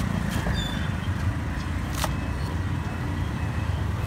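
Steady low rumble of outdoor street background noise, with a sharp click about two seconds in.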